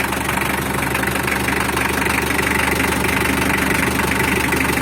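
Mitsubishi L300 engine idling steadily, freshly rebuilt after an engine overhaul.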